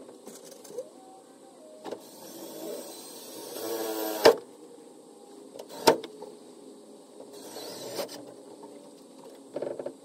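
Cordless drill driving self-tapping screws into a wooden board: short runs of motor whir, the longest building up for about a second before a sharp knock about four seconds in, with another sharp knock near six seconds and brief whirs near the end.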